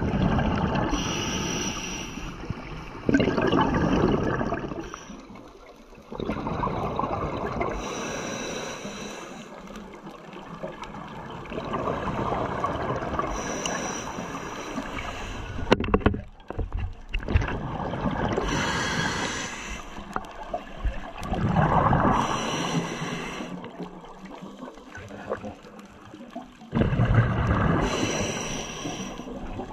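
Scuba diver breathing through a regulator underwater: a bubbling rush of exhaled air about every three to five seconds, with quieter stretches between.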